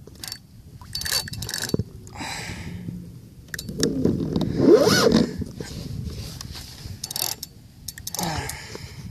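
Handling noise aboard a fishing kayak: scattered knocks, scrapes and rubbing as the phone and gear are moved about, loudest in a rushing stretch about four to five seconds in.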